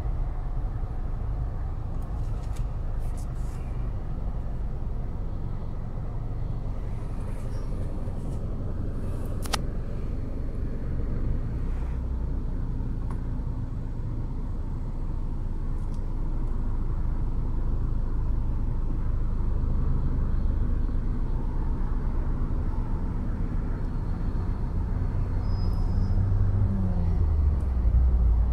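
Car cabin noise while driving in traffic: a steady low engine and road rumble. A few faint clicks occur, and the rumble swells near the end as the car pulls away.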